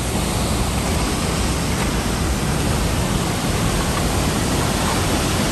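Large waterfall heard close up: a loud, steady rush of falling water.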